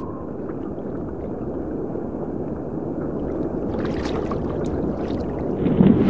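Underwater ambience: a steady low rushing water noise that swells slowly, with a spell of crackling about four seconds in.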